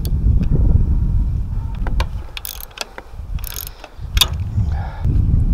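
Ratchet wrench clicking on the rusted bolts of a 1981 Evinrude 7.5 HP outboard's water pump housing: single clicks and two short ratcheting runs in the middle, with a sharp clack about four seconds in. A low rumble runs underneath.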